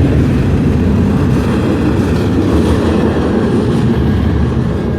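Freight train rolling past on the rails, giving a steady low rumble.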